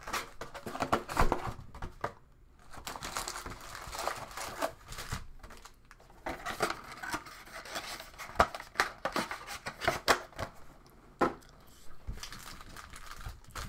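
Plastic shrink wrap being torn off a box of Panini Select soccer cards, and the box's foil card packs crinkling as they are pulled out and handled, in irregular rustles with many sharp crackles.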